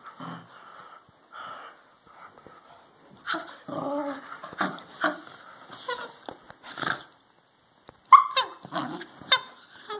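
Two puppies growling and yipping in bursts as they play-fight over a tennis ball, getting busier from about three seconds in. The loudest sound is a sharp yelp or bark falling in pitch about eight seconds in, with another about a second later.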